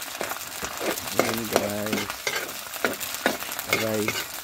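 Sardines frying in oil with onion and garlic in a pan over a wood fire, sizzling steadily, with stirring scrapes and many sharp clicks. Twice, about a second in and near the end, a short low humming tone sounds over it.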